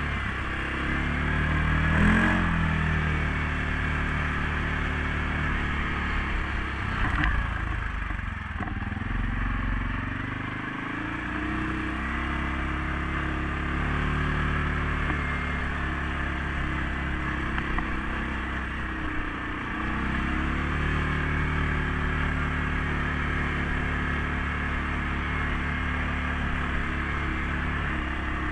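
CFMOTO CForce 500S ATV's single-cylinder engine running under way, its pitch rising and falling with the throttle and dropping away for a few seconds in the middle. A couple of sharp knocks, about two seconds in and again around seven seconds.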